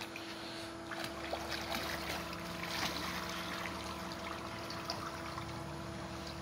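Swimming-pool water splashing and lapping at the tiled edge and overflow gutter, with many small splashes in the first few seconds, over a steady faint hum.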